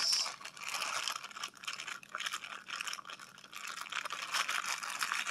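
Plastic packaging bag crinkling and rustling in the hands as it is worked open, with many small crackling clicks.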